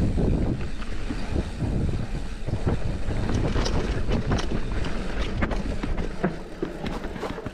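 Giant Trance mountain bike descending a dirt trail: wind buffeting the microphone and the rumble of tyres over the ground, with frequent clicks and rattles from the bike. It gets quieter near the end.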